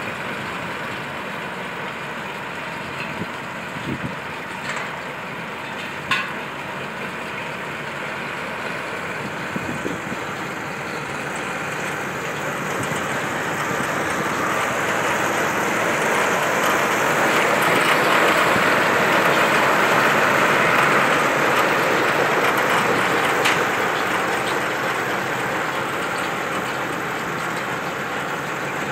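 Tractor pulling a Welger round baler through a hay windrow, its engine and the baler's pickup and chamber running steadily. It grows louder as the machine passes close, loudest about two-thirds of the way through, then eases off. A few short knocks come early on.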